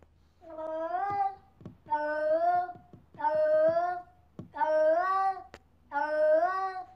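Domestic cat meowing repeatedly: five drawn-out meows about a second apart, each rising in pitch and dropping off at the end.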